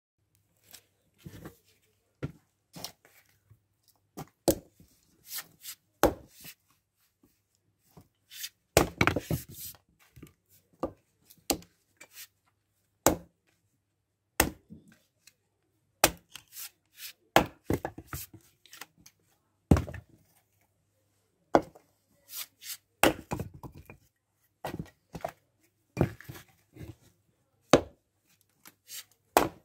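Fiskars X17 splitting axe striking and splitting dry firewood on a chopping block: a string of sharp wooden knocks and cracks at irregular intervals, roughly one every second or two, with a denser clatter about nine seconds in and again around twenty-three seconds.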